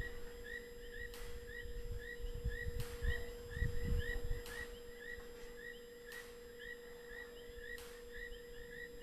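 Night ambience: a small creature chirping steadily about twice a second, with a sharp tick roughly every second and a half and a steady electrical hum. Low rumbling noise, loudest a few seconds in, fades in the second half.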